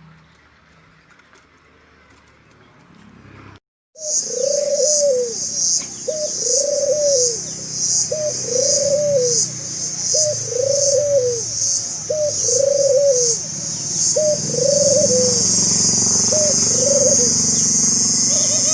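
Barbary dove (puter) cooing over and over, each call a short note followed by a longer arched coo, about one call every two seconds, after a quiet start. A loud high-pitched insect buzz runs behind it, pulsing at first and then steady.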